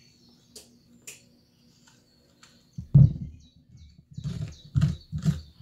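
Metal spoon scraping seeds and stringy pulp out of a halved raw acorn squash. A few faint clicks come first, then a loud knock about three seconds in, then several quicker scrapes about half a second apart.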